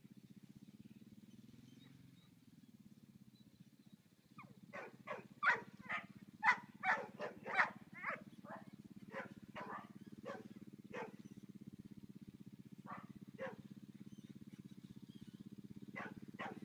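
Quad bike engine running steadily at idle, with a run of short, sharp dog barks, about two a second, starting about four seconds in and thinning out, then a few more barks near the end.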